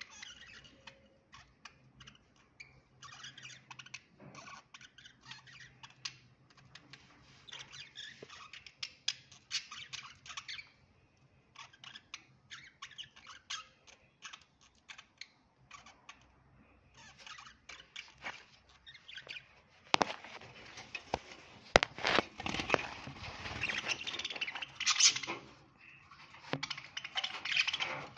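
Budgerigars chattering: scattered short, high chirps and warbles that turn louder and denser about two-thirds of the way in.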